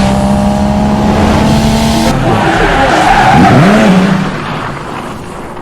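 Loud car engine with tyre squeal: a steady engine note that changes about two seconds in, swoops up and back down in pitch around three and a half seconds, then fades.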